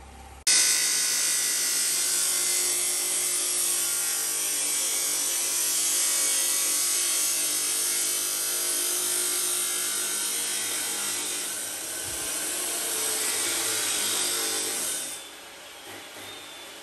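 Abrasive chop saw cutting through a thick steel bar: a steady, loud grinding whine of the cut-off wheel on metal over the saw's motor. It starts abruptly just after the start and stops about a second and a half before the end.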